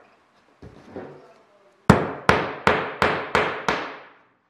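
Claw hammer tapping a small nail in, six quick strikes starting about two seconds in, each ringing briefly, to pin a thin wooden strip bent into a curve on the layout table. A couple of softer knocks come before the strikes.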